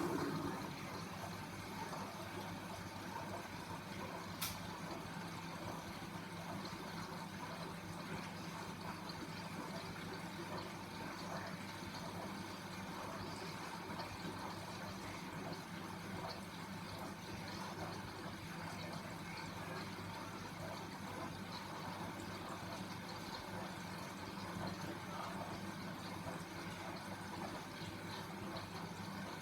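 Grundig washing machine taking in water: the fill starts suddenly and water rushes steadily into the drum over a steady low hum. There is a single sharp click about four seconds in.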